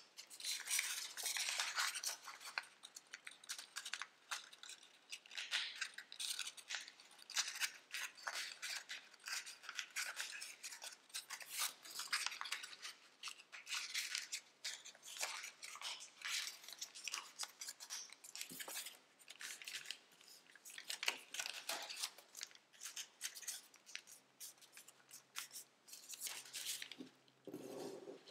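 Tissue-foil origami paper crinkling and rustling as it is folded and creased by hand, in quick uneven bursts of crackle.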